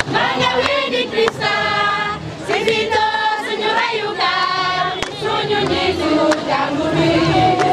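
Crowd of marchers singing a hymn together in unison, with long held notes.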